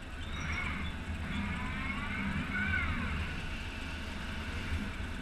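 Kawasaki RS010N robot arm moving, its axis servo motors whining in short glides that rise and fall in pitch over a steady low machine hum.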